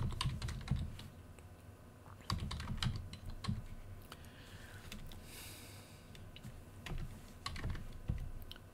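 Computer keyboard being typed on: runs of key clicks with pauses between, one near the start, one a few seconds in, and one near the end.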